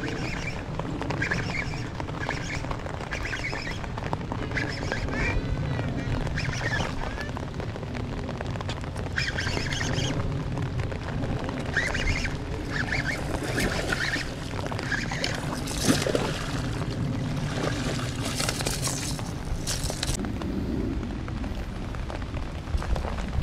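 A largemouth bass being fought on a baitcasting reel: the reel being cranked and the hooked fish splashing at the surface, over steady rain and wind on the microphone. Short repeated quack-like calls come every second or so, pausing now and then.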